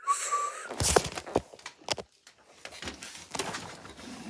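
Fidget toys being handled and put together: scattered knocks, clicks and rustling, with a brief high squeak at the start.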